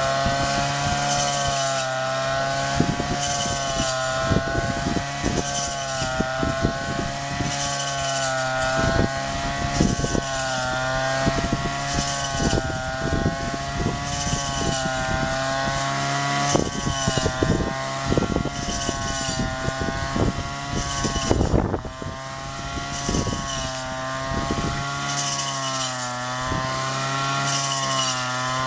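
Honda GX35 four-stroke brush cutter engine running at high speed, its pitch wavering up and down, with many short strikes and clicks through the middle of the stretch and a brief dip near the end.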